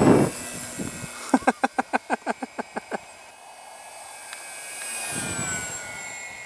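Parkzone F4U-1A Corsair RC plane's electric motor and propeller whining as it passes overhead, the pitch dropping as it goes by. Earlier comes a quick run of about a dozen fading clicks, roughly eight a second.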